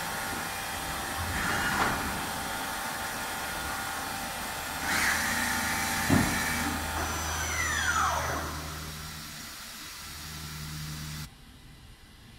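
Steady mechanical hiss and hum of workshop machinery, with a knock about six seconds in and a whine falling in pitch around eight seconds; the sound becomes much quieter near the end.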